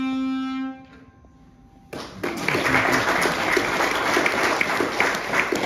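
A hurdy-gurdy holds its final note, a buzzing tone over a steady drone, which stops under a second in. After about a second of quiet, applause breaks out about two seconds in and continues, louder than the note.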